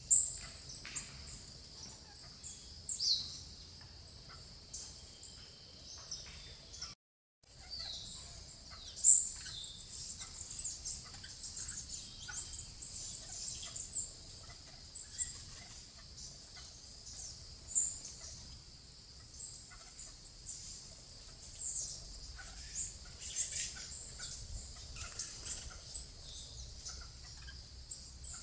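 Plain parakeets (Brotogeris tirica) calling: many short, high-pitched chirps in quick, irregular series, over a steady high hiss. The sound drops out for about half a second around seven seconds in.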